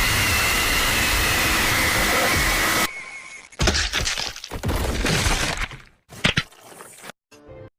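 Edited sound effects: a loud, noisy blast with a thin held high tone for about three seconds, then a string of crashing, breaking sounds that stop and start abruptly, with short cut-outs near the end.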